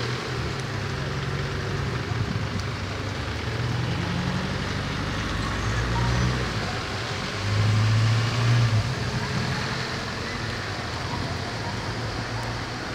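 A motor vehicle's engine running, a low rumble that grows louder for about a second around the middle, over a steady hiss.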